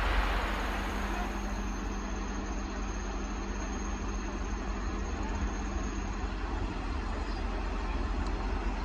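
Heavy diesel engine idling steadily with a deep hum over general yard noise. A faint high whine runs alongside and stops about six seconds in.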